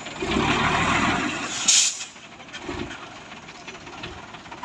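Heavy cargo truck driving slowly past, its engine and tyres loudest for the first two seconds. About two seconds in there is a short, sharp hiss of air, typical of a truck's air brakes, and then the truck grows quieter as it moves away.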